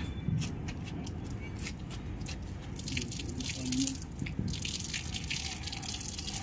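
Water poured in a thin stream from a small hand-held vessel, splashing and dripping, with a run of sharp drip ticks that thickens into a steady splashing hiss about three seconds in.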